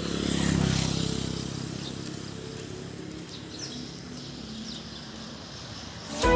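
A small motorcycle passes close by, its engine swelling in the first second and a half and fading as it rides away, leaving quiet street background. Music cuts in at the very end.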